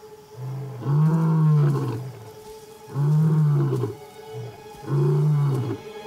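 Adult male lion roaring: a series of deep calls, each arching up and down in pitch, about every two seconds. This is the resident male's territorial roaring, a warning to intruders at his kill.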